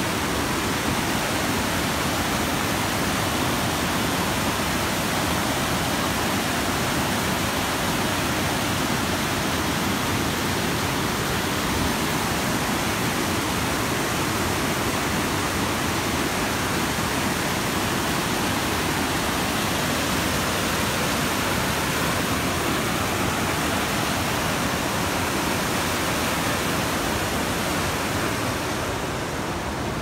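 Waterfall cascading down many tiers of rock, with white water rushing over boulders below: a loud, steady rush of falling water that eases slightly near the end.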